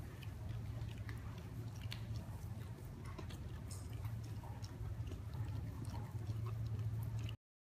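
A Chow Chow sucking and licking at a small feeding bottle: soft, irregular wet clicks and smacks over a low steady hum.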